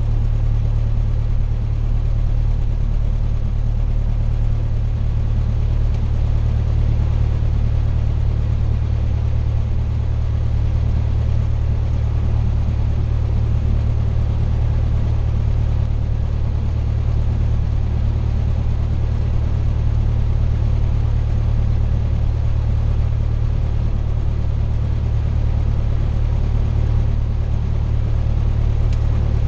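Cessna 172's piston engine and propeller running steadily at low taxi power, heard from inside the cabin as a constant low drone.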